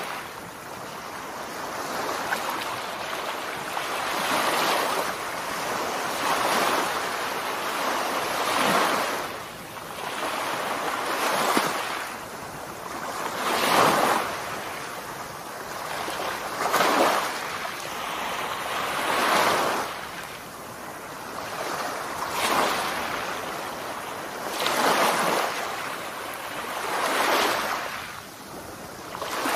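Surf washing onto a beach. The rush of breaking waves swells and fades about every two to three seconds.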